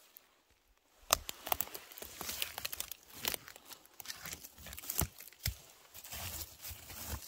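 Dense crackling and rustling of dry forest-floor litter, twigs and needles being disturbed, with many sharp snaps, starting about a second in.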